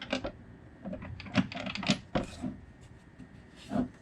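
Plastic air filter housing being tugged and worked loose by hand: a run of short plastic clicks and knocks, bunched together about a second in and again briefly near the end.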